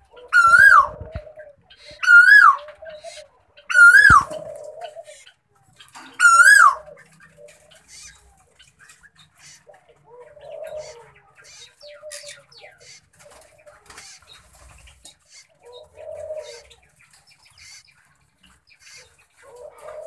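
Plum-headed parakeet calls: four loud calls, each rising and then falling, about two seconds apart in the first seven seconds. Softer low chattering and faint short chirps follow.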